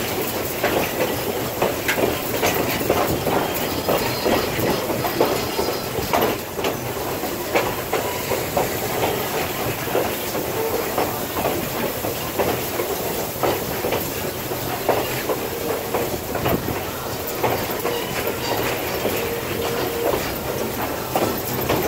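Passenger train in motion, heard from aboard a coach: steady running noise with wheels clacking and the car knocking and rattling, the clacks coming irregularly throughout.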